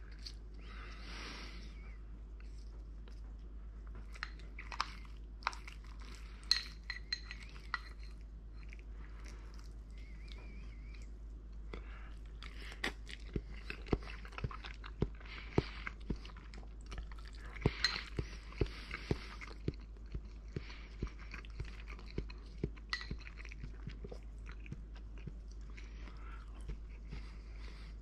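A person eating scrambled eggs topped with sliced truffle from a ceramic bowl with chopsticks: chewing and mouth sounds with many small sharp clicks, thickest in the middle stretch.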